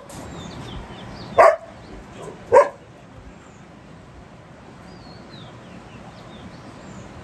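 A dog barks twice, once about a second and a half in and again about a second later. Faint bird chirps follow.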